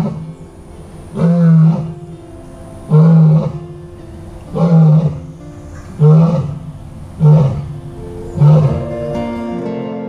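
A lion's roaring bout: about six short, deep calls, each under a second, coming a little faster toward the end, over background music. The calls stop near the end and acoustic guitar music carries on.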